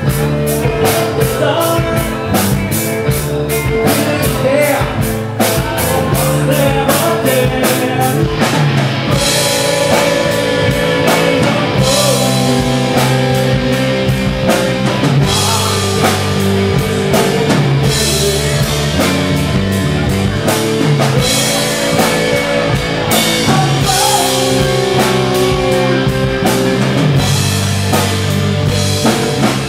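Rock band playing live: drum kit, electric guitar and bass guitar. Fast, even drum hits drive the first part, and about nine seconds in heavy cymbal crashes come in over sustained guitar chords and bass notes.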